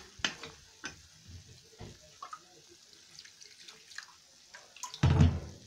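Spoon stirring and scraping a thin, watery flour-and-tomato gravy in a small frying pan on the heat, with small clicks of the spoon against the pan and wet sloshing: water being worked into a fried flour roux to keep it from lumping. A brief loud thump near the end.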